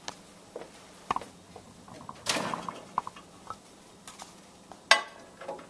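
A plate with a paper-towel-wrapped sweet potato being set into a microwave: light clicks and a short rustle, then a sharp click near the end as the microwave door is shut.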